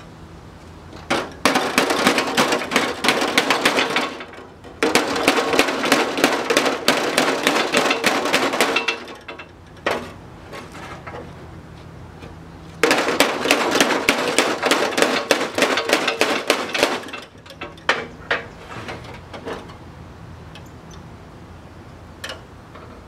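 A power metal-cutting tool chattering rapidly as it cuts through the rusted sheet-steel floor pan of a 1969 Cadillac Eldorado, in three runs of a few seconds each, followed by a few single sharp clicks.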